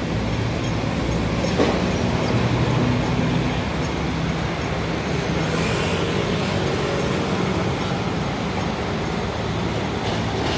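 City street traffic: a steady rumble of vehicle engines over a constant hiss of road noise.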